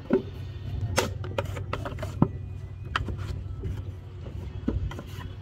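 Sharp knocks and scraping from hand brick moulding: a wooden brick mould and a metal scraper being worked in loose sand. It comes as a few irregular knocks, with a steady low hum underneath.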